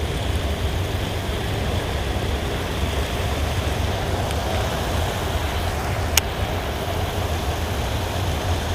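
Steady rush of river water pouring over a concrete waterfall. A single sharp click comes about six seconds in.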